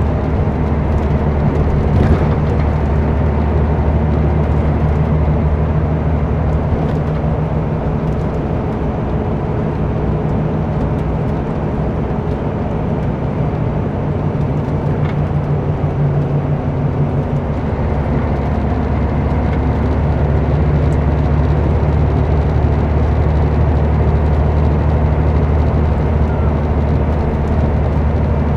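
Scania K124 coach's six-cylinder diesel engine running on the road with tyre and road noise, heard from inside the passenger cabin. The engine note shifts about two-thirds of the way through.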